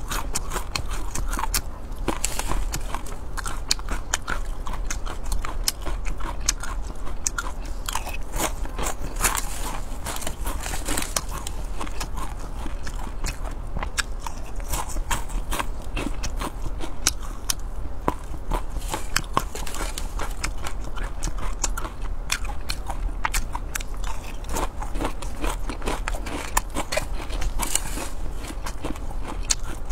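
Close-miked chewing and biting of seasoned silkworm pupae: a dense run of small crunches and wet mouth clicks, spoon-fed mouthful after mouthful.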